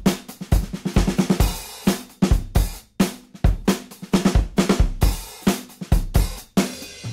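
Background music: a steady drum-kit beat of kick drum, snare and cymbals.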